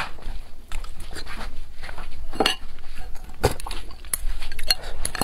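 Close-miked eating sounds: chewing and mouth noises, with irregular clicks of chopsticks against a rice bowl and plate.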